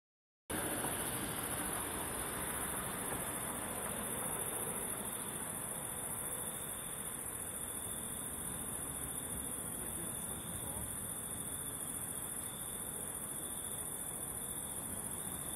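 Night insects, crickets, chirring in a continuous high-pitched trill over a steady low background hiss. It starts abruptly about half a second in.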